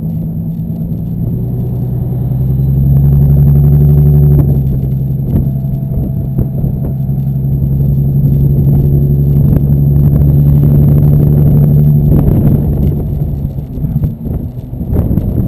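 Infiniti G35 sedan's 3.5-litre V6 running through a straight-through exhaust with the resonator and muffler deleted, a steady low exhaust drone. It swells louder twice and turns rougher and more uneven near the end.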